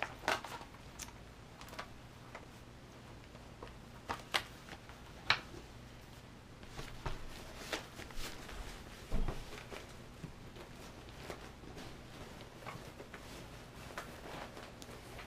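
Handling noise of vinyl and fabric cases being packed into a tote bag: scattered light clicks, taps and rustles, with one dull thump about nine seconds in.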